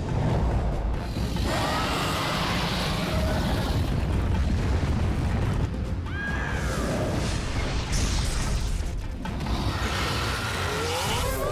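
Cartoon soundtrack: background music over heavy, low booming rumbles, with short squeaky glides in pitch about six seconds in and again near the end.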